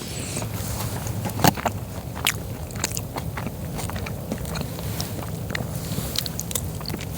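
A person chewing a mouthful of chicken backpacking meal, with many short clicks and scrapes and a louder click about one and a half seconds in, over a steady low rumble.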